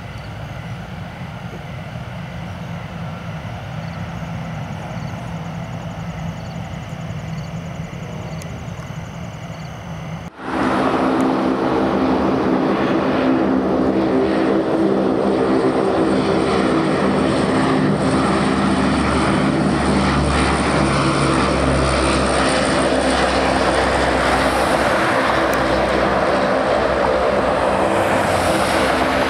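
C-130 Hercules four-engine turboprop running, its engines and propellers droning steadily. About a third of the way in the sound abruptly becomes much louder, with several steady propeller tones over a rushing noise.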